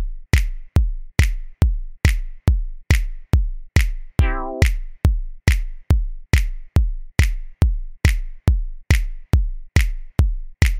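Electronic dance music with a drum machine: a steady kick drum a little over twice a second, with a short synth chord about four seconds in.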